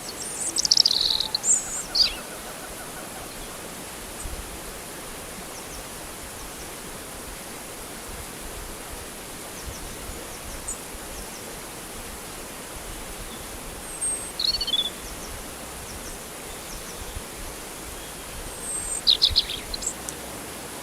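Birds chirping in short, falling calls, in three bursts: at the start, about fourteen seconds in and near the end. Under them runs a steady hiss of flowing water.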